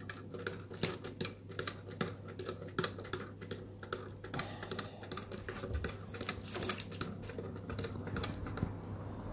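Quick, irregular clicking from a battery quartz clock movement as its time-setting knob is turned by hand to move the hands, with a low steady hum underneath.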